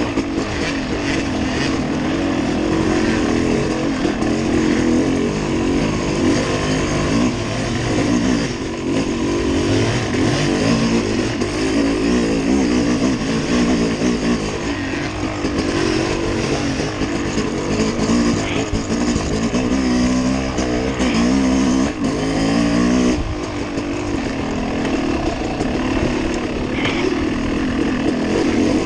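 Motorcycle engine running under varying throttle, its revs rising and falling repeatedly, with a brief drop about three quarters of the way through.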